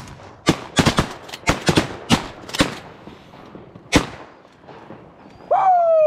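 Volley of shotgun fire from several hunters shooting at a passing flock of geese: about ten sharp shots, most of them close together in the first three seconds, and a last one about four seconds in. Near the end comes a loud, drawn-out call that falls in pitch.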